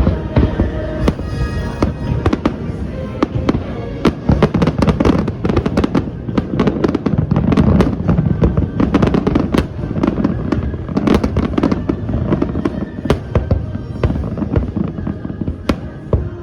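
Aerial fireworks going off in quick succession, loud bangs mixed with rapid crackling, densest through the middle, with the show's music playing underneath.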